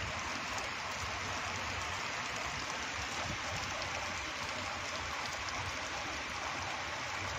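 Steady rain falling on a wet asphalt road and pavement, a continuous even hiss.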